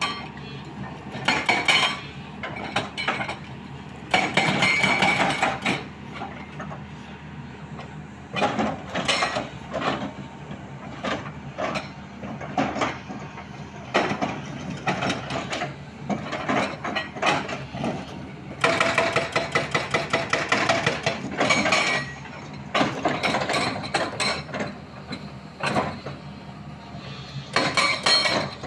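Hydraulic rock breaker on a Sany 215 excavator hammering hard rock in repeated bursts of rapid blows, with short pauses between bursts, over the steady running of the excavator's diesel engine.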